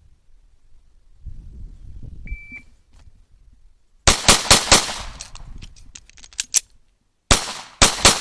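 A shot timer beeps once, then a pistol fires four quick shots. Smaller metallic clacks follow as the empty gun is reloaded, and then a second fast string of shots.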